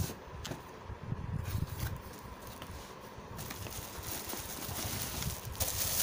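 Cardboard packaging handled, with a few light knocks and scrapes as the lid comes off and the flaps open, then plastic wrapping rustling and crinkling, louder toward the end, as the wrapped headset is pulled out.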